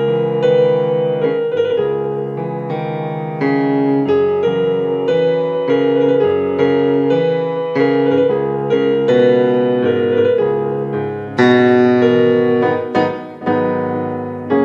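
Background music: a slow solo piano piece played on a keyboard, with held chords and melody notes struck about every half second to a second, and a louder chord about eleven seconds in.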